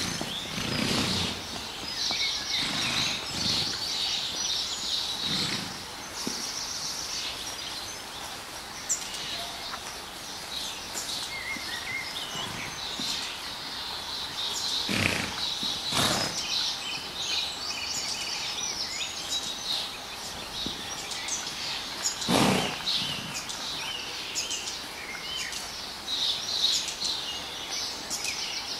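Small birds chirping and singing all through. There are three short, sharp noises: two about a second apart around the middle, and one a few seconds later.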